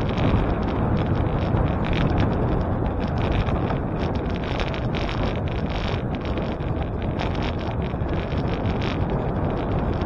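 Wind rushing over the microphone of a moving bicycle, a steady low rush.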